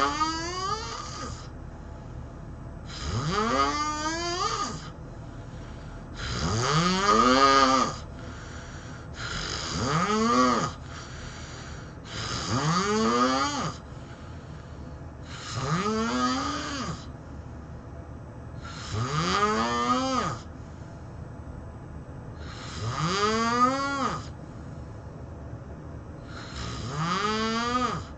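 A person snoring loudly: nine long snores, one about every three seconds, each rising in pitch and dipping slightly at its end.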